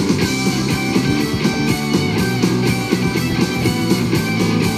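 A song's guitar passage with no singing, played at full volume through a first-generation Apple HomePod smart speaker and picked up by a microphone in front of it.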